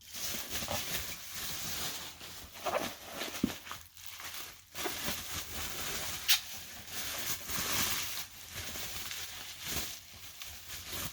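Packing material crinkling and rustling in steady handling, with scattered small crackles, as a wrapped item is unwrapped from a box.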